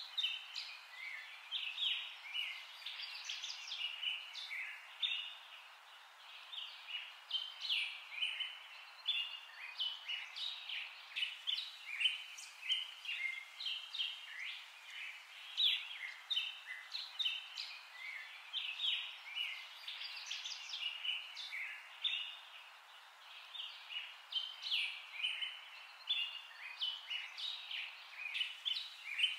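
A dense chorus of many small birds chirping, short calls overlapping one another without a break.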